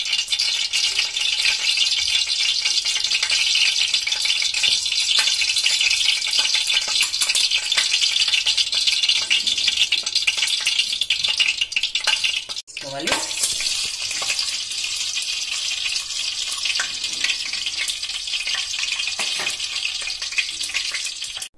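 Mustard oil and ghee sizzling and crackling steadily as they heat in an aluminium pan, the oil being brought up to temperature before whole spices go in. The sound cuts off briefly about halfway, then carries on.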